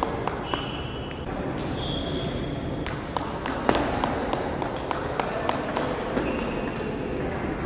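Table tennis ball clicking irregularly off bats, table and floor, the rally clicks mixed with others from neighbouring tables, in a large, echoing sports hall.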